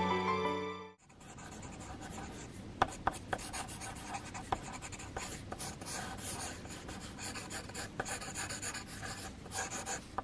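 Background music ending about a second in, then a pencil scratching on paper in quick, irregular sketching strokes, with a few sharper ticks.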